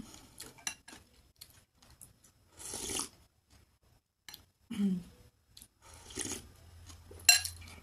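Close-up eating sounds from a mouthful of chicken wonton soup: chewing with many small wet mouth clicks, and short sips of broth from a ceramic soup spoon, one longer sip about three seconds in.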